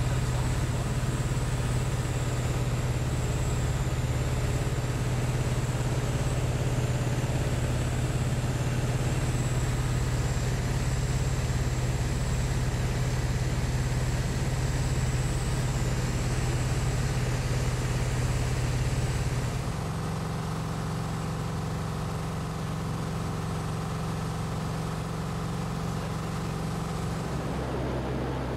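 Grob G 109B motor glider's flat-four engine and propeller droning steadily, heard inside the cockpit during flight. About twenty seconds in, the drone changes note and gets a little quieter, as engine power changes.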